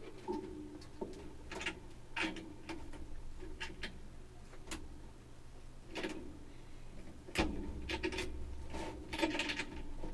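Handling noise of objects being worked close to the microphone: irregular clicks, taps and rubbing, with a few sharper knocks. A low rumble comes in about seven seconds in.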